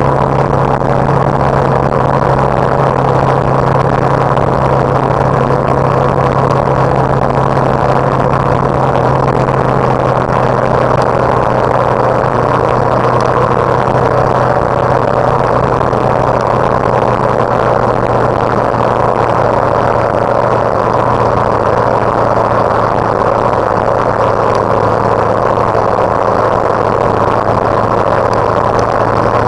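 Steady road noise and engine hum of a vehicle cruising through a road tunnel, an even rushing noise with a steady low hum underneath, unchanging throughout.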